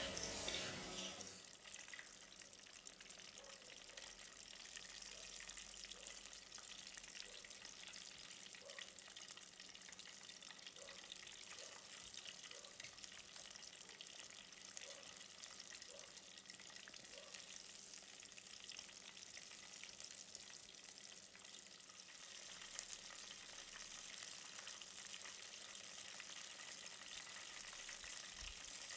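Flour-breaded chicken pieces deep-frying in hot oil in an electric deep fryer: the oil sizzles and bubbles, louder at the start and settling within about two seconds into a steady, fine sizzle.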